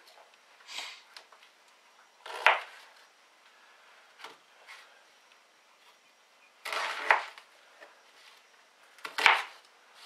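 Kitchen knife cutting through an onion and knocking on a plastic chopping board. There are a few crisp cuts, with sharp knocks of the blade on the board about two and a half seconds in and again near the end, and a longer crunchy cut in between.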